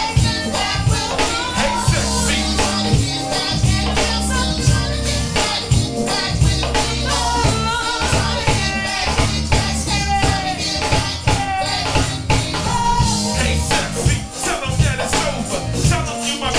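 Background music with a steady beat, bass and a singing voice.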